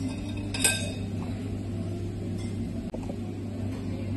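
A metal fork clinks against a metal serving platter: a light clink at the start and a sharper, louder one a little over half a second in, over a steady low hum.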